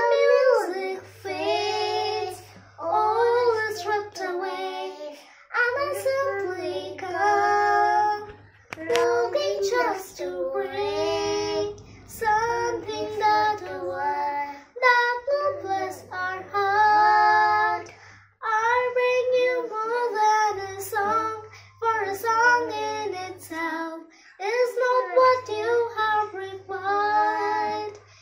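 Child singing a Christmas prayer song in phrases of two to three seconds with short breaks between them, and a faint low steady tone under most phrases.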